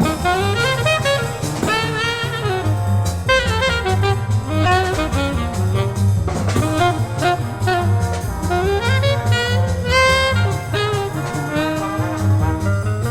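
Jazz orchestra playing: saxophones and brass carrying the melody over bass and drum kit.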